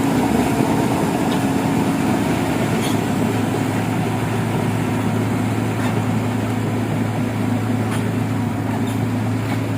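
Truck engine running steadily at a constant, unchanging pitch.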